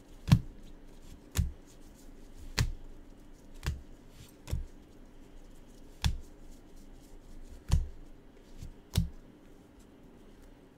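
Trading cards handled by gloved hands while being sorted from a stack: eight sharp card snaps or taps, each with a light thump, spaced about one to one and a half seconds apart and stopping near the end.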